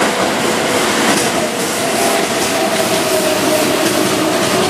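Keihan 9000-series commuter train rolling past close by on a curve: a steady rumble and rattle of wheels on rail, with a few faint steady tones running under it from about a second and a half in.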